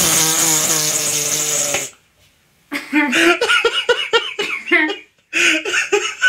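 Hearty laughing, loud, cut off abruptly about two seconds in; after a short silence, more laughing in short, choppy bursts.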